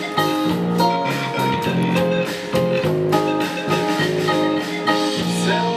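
Live band music without singing: guitar with drums keeping a steady beat.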